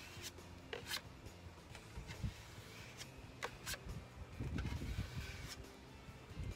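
Plastic spreader scraping body filler onto a painted boat hull: a few short scrapes and clicks, with a low rumble about four and a half seconds in.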